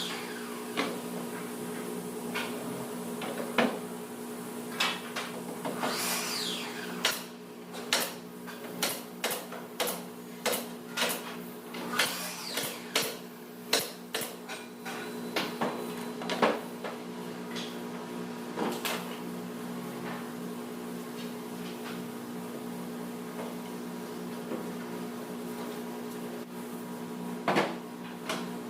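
Sharp knocks and taps on timber, with a steady low machine hum underneath. The knocks come about once a second in the middle stretch and are scattered before and after.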